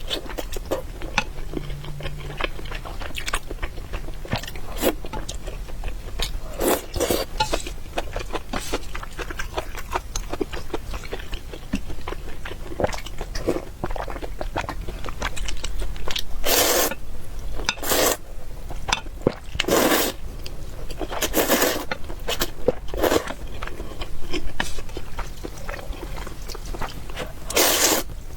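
Close-miked eating: continual chewing and small mouth clicks, with several louder half-second slurps, most of them in the second half.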